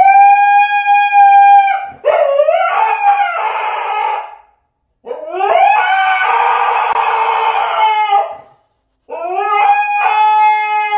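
A husky howling: four long howls with short breaks between them. Each rises at the start and is then held; the middle two are rougher and more wavering.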